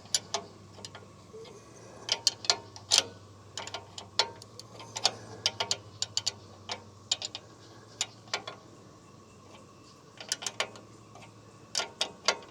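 Sharp metallic clicks in short, irregular runs as a hand tool tightens an adjustment nut on a bandsaw sawmill's head.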